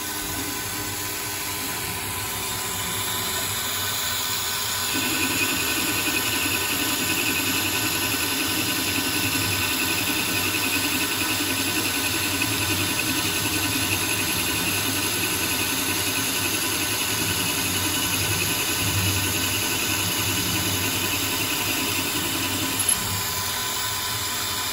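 CNC lathe spindle running while a carbide boring bar bores a hole in D2 tool steel. The cutting noise comes in about five seconds in as the tool takes the cut, holds steady, and eases off shortly before the end.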